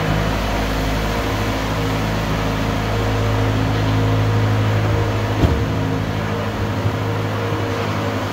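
Steady low mechanical hum with a constant drone, broken by a brief knock about five and a half seconds in.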